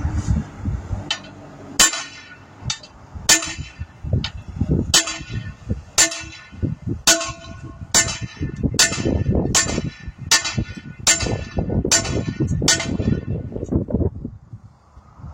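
Heavy hammer striking a bent steel wheel rim's edge to straighten it back out. It is a steady run of blows that speeds up to about two a second, each with a metallic ring, and stops about 13 seconds in.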